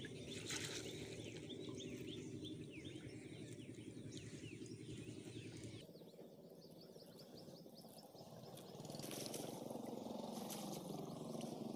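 Shallow river water sloshing and trickling as a ring trap net is swished and lifted through it, with short high chirps and a low steady hum underneath. The sound drops about halfway through and rises again near the end.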